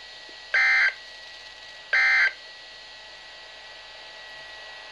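NOAA Weather Radio SAME end-of-message data bursts: two short, loud bursts of digital warbling tone, about half a second in and two seconds in. They are the last of the three that mark the end of an alert broadcast, and they sit over a faint steady radio hiss.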